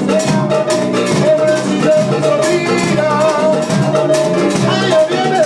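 Live band playing Latin music: a man singing into a microphone over electric bass and percussion, with a steady beat.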